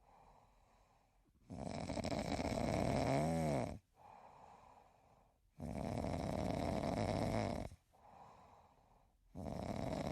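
A cat snoring in slow, even breaths. Three loud rasping snores of about two seconds each come roughly every four seconds, with softer breaths between them.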